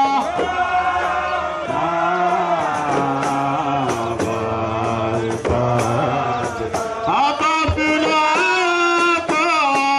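Group chant-song of a Comorian tari sword dance, several voices singing together over regular sharp percussion strikes.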